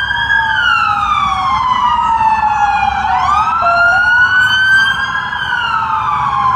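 Two or more emergency vehicle sirens wailing at once, each slowly rising and falling in pitch and out of step with the others, loud over a low rumble of background noise.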